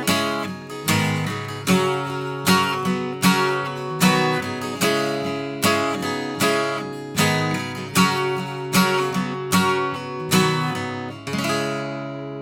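Acoustic guitar strummed in a steady rhythm, a chord about every three-quarters of a second, ending on a last chord left to ring out and fade.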